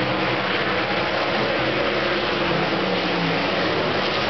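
Several sprint car V8 engines running hard as the cars race around a dirt oval, a steady dense din with engine notes that shift in pitch as cars pass.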